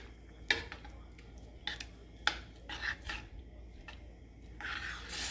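A metal spoon stirring rice in coconut milk in a stainless steel saucepan, clinking against the pan four times, with a brief scrape near the end.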